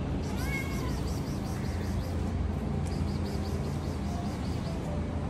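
Domestic cat meowing once, a short call that rises and falls in pitch about half a second in.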